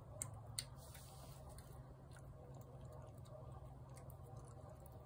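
Faint clicks and smacks of a cat eating canned wet food from a plate, over a low steady hum, with two sharper clicks within the first second.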